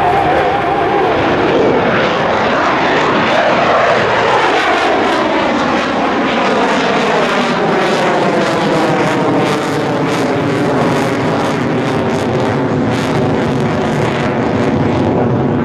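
Mitsubishi F-2 fighter's single F110 afterburning turbofan jet engine, loud and continuous as the jet flies past, its pitch falling in the first few seconds as it goes by, then a steady rough jet noise.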